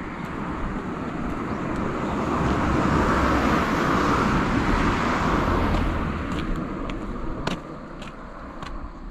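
A car passing on the road: tyre and engine noise swells to a peak around the middle and then fades away. A few footsteps tap on the pavement near the end.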